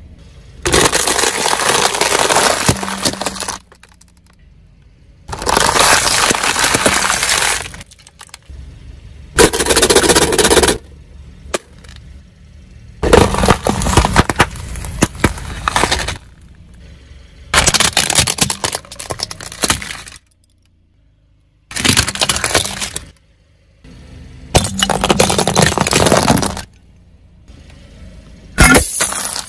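A car tyre rolling over and crushing a string of objects in turn: about eight separate bouts of crunching, cracking and breaking, each a second or few long, with short pauses between them.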